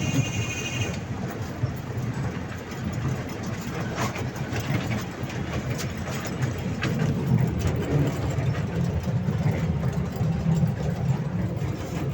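Park toy train running, heard from on board: a steady low rumble with scattered sharp clicks. A high steady whine cuts off about a second in.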